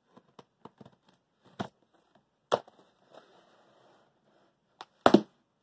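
A cardboard laptop shipping box being handled and opened by hand: a run of irregular taps and knocks on the cardboard with a short scraping noise about three seconds in. The loudest is a double thump near the end.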